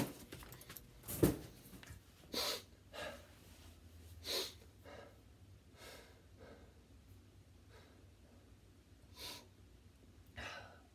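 A single sharp thump about a second in, then a man's heavy breathing: a handful of separate breaths spread over the following seconds.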